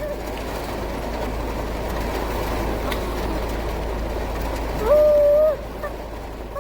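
Steady rain on a car's roof and windscreen over a low rumble inside the car. About five seconds in, a child's voice briefly holds a single loud note.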